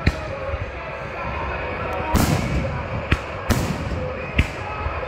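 Aerial fireworks shells bursting overhead: about five sharp bangs, two of them followed by a crackling hiss. Music plays underneath.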